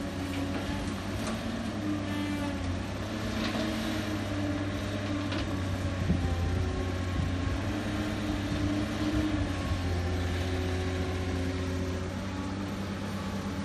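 Cat 320 excavator's diesel engine running under working load, its note shifting up and down as the hydraulics dig, swing and dump soil into a dump truck. A few short knocks, the loudest about six seconds in.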